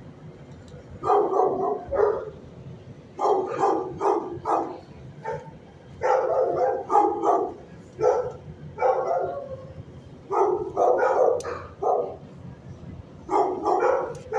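Shelter dogs barking in short bursts of several barks, a burst every couple of seconds.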